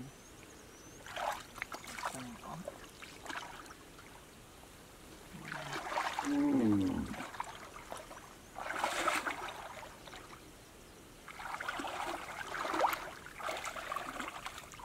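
Muddy pond water splashing and sloshing in several bursts, each a second or two long, as a mosquito net is dragged through it by people wading. A brief voice-like call with falling pitch sounds about six seconds in.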